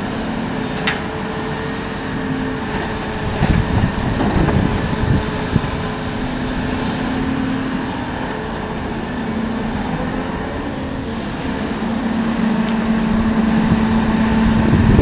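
Volvo EC 480E long-reach excavator's diesel engine running under hydraulic load as the triple boom lowers and the machine swings, its engine note rising at times. A sharp clink comes about a second in, and a stretch of clanking and clatter follows a few seconds in.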